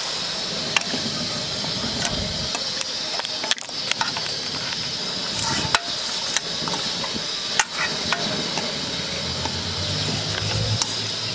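Hot masala paste in a stainless steel pan sizzling with a steady hiss as water is stirred in. A slotted metal spoon clicks against the pan now and then.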